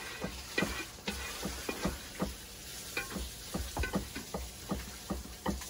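Meat stir-frying in a hot oiled pan: steady sizzling, with a spatula scraping and knocking against the pan about three times a second.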